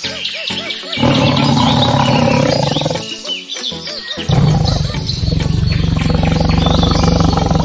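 Lion roaring over background music with a steady beat, with a long roar starting about four seconds in.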